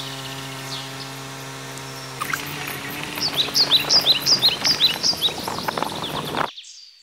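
A steady held tone, then birds chirping in quick, repeated high calls from about two seconds in; the sound cuts off abruptly near the end.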